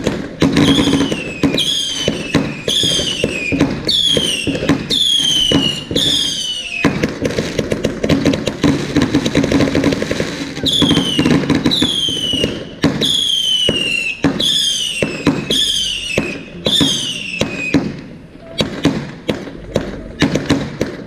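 Fireworks firing a rapid run of whistling shots, each a sharp launch pop followed by a falling whistle, about two a second. About seven seconds in, the shots give way to a few seconds of dense hissing and crackling. The whistling shots then resume, and the last few seconds are separate sharp pops.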